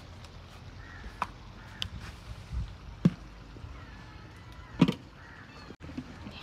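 Cooking pots and a bowl being handled: a few scattered knocks and clatters, the loudest two about three and five seconds in.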